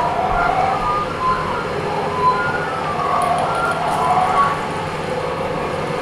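Improvised experimental performance sounds: several short, wavering and gliding tones over a steady, rumbling noise, with a few small knocks.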